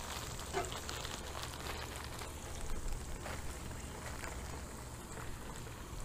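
Breaded bream frying in hot oil in a skillet on a propane camp stove: a steady sizzle with faint scattered crackles.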